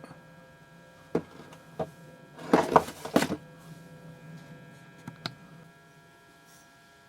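Handling noises: a few sharp clicks and knocks, with a louder brief clatter about two and a half to three seconds in, over a faint steady electrical hum.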